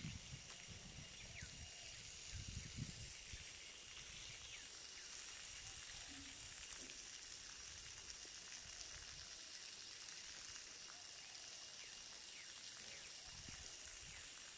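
Faint, steady high-pitched hiss of outdoor ambience, with a few thin sustained tones in it. Low wind rumbles on the microphone come in the first few seconds and again near the end.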